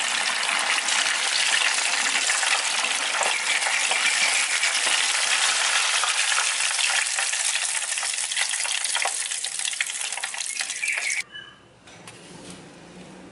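Chicken pieces deep-frying in hot oil in a pan: steady, loud sizzling and crackling that cuts off abruptly near the end.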